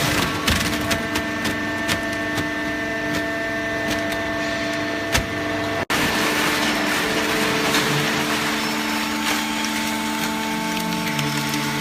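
Hydraulic baler running: a steady hum and whine from its motor and hydraulic pump, with scattered knocks and rattles. The sound cuts out for an instant about six seconds in, and the pitch of the hum shifts a little near the end.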